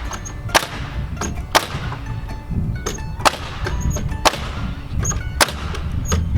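A series of sharp strikes, roughly one a second, as nails are driven through the top plate into the wood wall framing, over background music.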